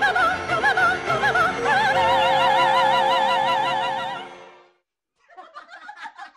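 Recorded operatic singing: the closing phrase of a German dance duet, ending about two seconds in on a long held note with wide vibrato that fades out before the fifth second. After a brief silence, a voice starts chuckling near the end.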